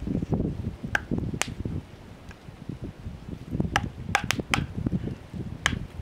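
Wood campfire crackling, with a handful of sharp, irregular pops over a low, uneven rumble.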